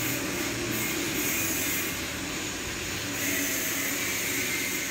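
A steady, even rushing noise with no clear beat or pitch: workshop background machinery noise.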